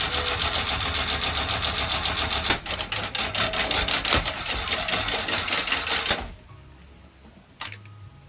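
Damaged Hampton Bay Landmark ceiling fan running with a rapid, continuous mechanical clatter. About six seconds in it stops abruptly, leaving a few faint clicks.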